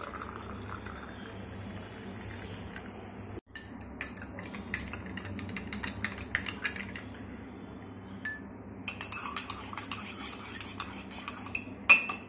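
Milk pouring into a glass with a steady hiss. After a cut, a metal spoon stirs in the glass tumbler, clinking against its sides in quick runs of ticks, with one louder clink near the end.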